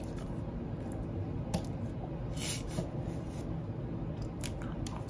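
Steady low room hum with a few faint soft clicks and a brief rustle.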